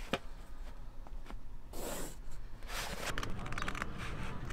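Rustling and scraping of cardboard and paper during hands-on craft work: short rasping strokes and a few light clicks, with the strokes coming in quicker succession over the last second and a half.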